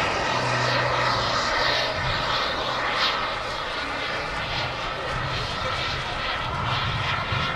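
Two MW44 model jet turbines on a flying-wing aircraft in flight, giving a steady rushing jet noise.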